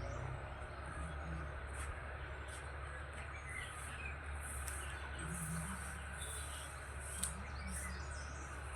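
Wild birds chirping: scattered short, high chirps from several birds over a steady low background hum.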